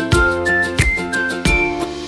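Background music: a bright, upbeat tune with a regular beat and a simple melody line.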